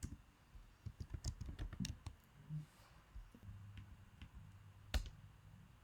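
Typing on a computer keyboard: a quick run of key clicks about a second in, then scattered keystrokes, and one sharper, louder key click near the end.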